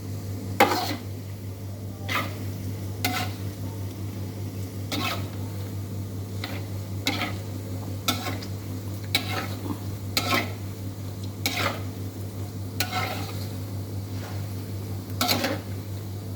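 Otak-otak fish cakes frying in hot oil, sizzling in a pan, while a spatula scrapes and stirs against the pan about once a second. A steady low hum runs underneath.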